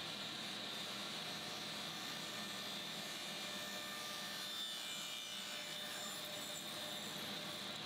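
Faint, steady background hiss with a thin high whine and no tool running: shop room tone.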